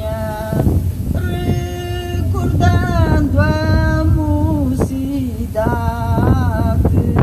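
Women's choir singing Alentejo cante without instruments: long, slowly gliding held notes, with one voice alone at times and several voices together at others.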